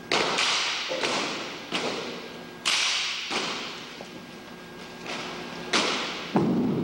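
Drill team working rifles and boots on a wooden floor: about nine sharp knocks and slaps at uneven intervals, each ringing on in the hall's echo, with a heavier, deeper thud near the end.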